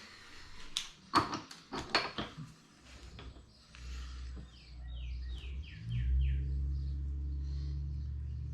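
A few sharp metallic clicks and knocks as a milling machine is handled. Then a motor starts with a low hum that grows louder about six seconds in and runs steadily. A few short falling chirps are heard along with it.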